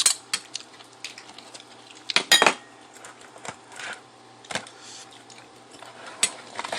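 Clicks and clatter of a seafood meal being eaten at the table: crab and lobster shells and utensils knocking and cracking in scattered sharp strikes, loudest in a short cluster about two seconds in.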